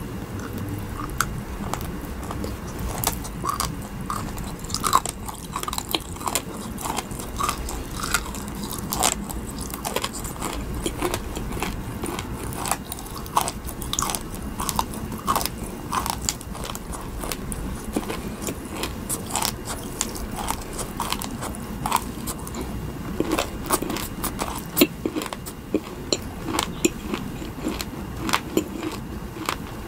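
Biting and chewing a Nerds Rope: the tiny hard Nerds candies on the gummy rope crunch in many short, sharp crackles and clicks throughout.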